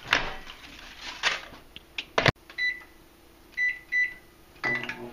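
Microwave oven handled: clicks and knocks of its door opening and shutting, the loudest a sharp knock a little over two seconds in, then four short keypad beeps as the time is entered. Near the end a low hum begins as the oven starts running.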